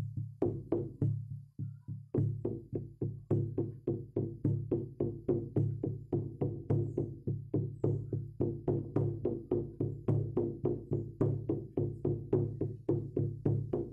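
Frame drum beaten in a steady rhythm, about three to four strokes a second, each stroke with a low booming resonance. The strokes weaken briefly about a second and a half in before picking back up.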